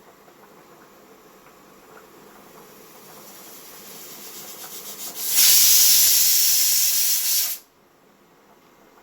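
Pressure cooker venting steam: a soft hiss builds, then about five seconds in a loud burst of hissing steam lasts about two seconds and cuts off suddenly.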